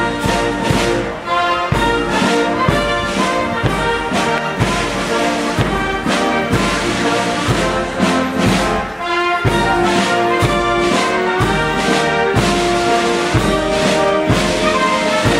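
Brass band playing a march, with the horns carrying the tune over a steady drum beat.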